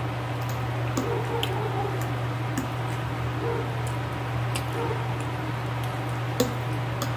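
Close-miked chewing and wet, squishy mouth sounds of someone eating soft stewed beef and vegetables, with scattered sharp clicks of a fork against the plate and teeth. A steady low hum lies underneath.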